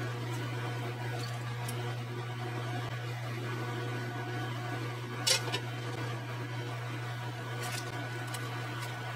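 Steady low hum with faint clatter of tongs and vegetables against a stainless steel pot and bowl; a single sharp metallic clink about five seconds in.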